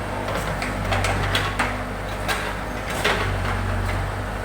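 Backhoe loader's diesel engine running steadily, with a series of sharp metallic clanks and scrapes from the machine working.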